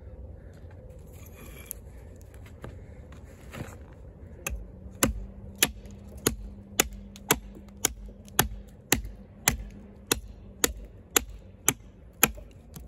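Small camp axe chopping into the end of an upright stick on a wooden stump, shaping a point: about fifteen sharp, evenly paced strikes, roughly two a second, starting about four seconds in after some light handling.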